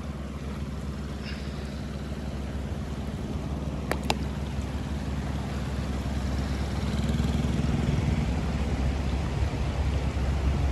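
A boat's motor runs with a steady low drone over the rush of water across a shallow, stony riverbed, slowly growing louder. A short click comes about four seconds in.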